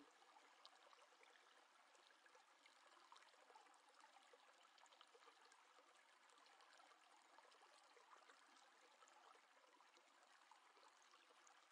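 Near silence: faint room hiss with a few tiny scattered ticks.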